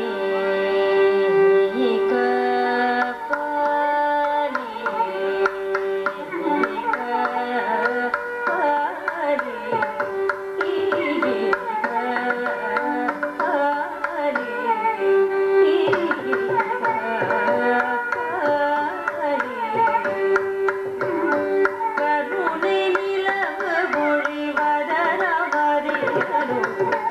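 Carnatic vocal music: a woman's voice sings a gliding, ornamented melody with long held notes. A violin follows her line, and mridangam strokes keep a steady rhythm beneath.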